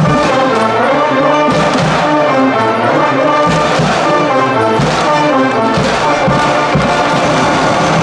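School cheering brass band playing a fight-song tune, sousaphones and other brass going continuously at full volume.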